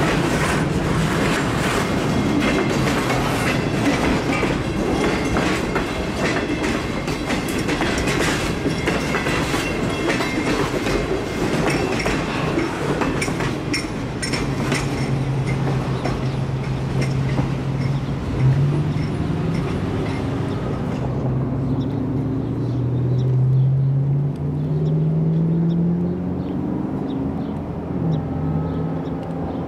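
Freight train of boxcars rolling past, steel wheels clicking rapidly over rail joints amid a steady rumble; after about twenty seconds the sound dulls as the train moves away. Through the second half a low engine hum slowly rises in pitch.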